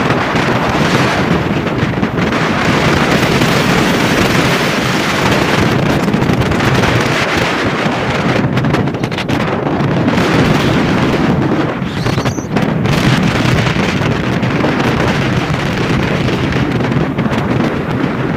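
Wind rushing over the microphone of a Yamaha Lander 250 motorcycle riding at road speed, a loud, steady noise that dips briefly about twelve seconds in.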